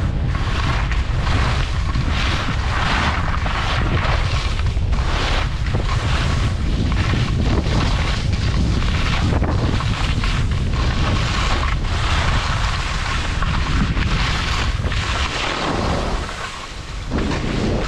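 Wind buffeting the microphone of a skier moving downhill, over the hiss and scrape of skis on snow that swells and fades with each turn. The wind rumble drops away briefly about a second before the end.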